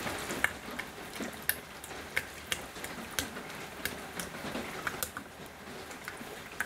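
Spatula stirring thick emulsified body butter cream in a stainless steel pot, with irregular light clicks and taps against the pot.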